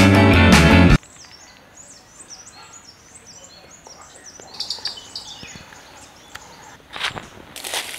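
Rock music with guitar cuts off about a second in, giving way to birds chirping in quick, repeated high calls over quiet outdoor ambience. A few short, louder noises come near the end.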